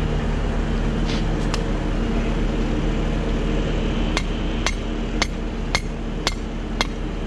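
Hammer strikes, sharp and evenly paced at about two a second, starting about four seconds in, over the steady drone of an idling machine engine.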